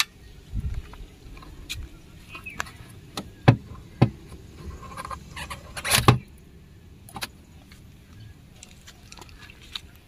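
Metal clinks and knocks of car tools, a scissor jack and wheel spanner, being handled and lifted out of a car boot's spare-wheel well. The loudest knocks come about three and a half, four and six seconds in.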